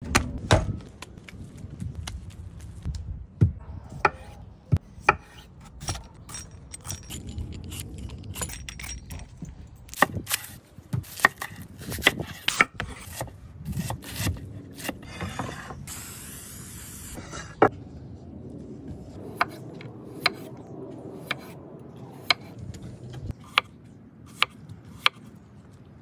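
A cleaver chopping onion on a wooden cutting board: irregular sharp knocks of the blade striking the board. A brief hiss comes about two-thirds of the way through.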